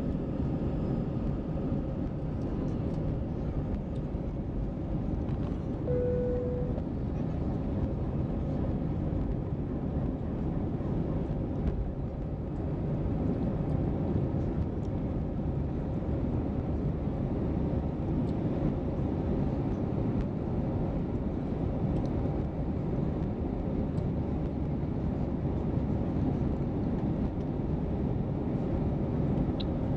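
Airbus A320 jet engines at takeoff thrust heard from inside the cabin: a steady rumble and rush through the takeoff run and climb-out. A short beep sounds about six seconds in.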